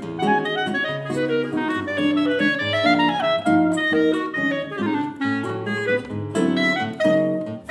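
Clarinet and classical guitar duo playing a fast, virtuosic choro. The clarinet plays quick runs of notes over a full, chordal guitar accompaniment.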